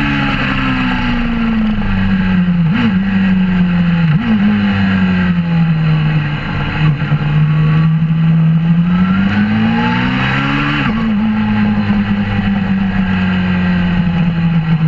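Suzuki GSX-R600 K4's inline-four engine through a Werx exhaust, heard onboard at track speed. The revs fall off under braking with two short blips as it changes down, then climb steadily out of the corner and drop sharply at an upshift about three-quarters of the way through, after which it runs at a steady pitch.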